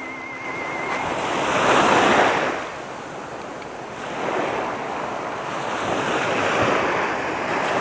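Small waves breaking and washing up a sandy beach, swelling and falling about every two seconds; the loudest wash comes about two seconds in.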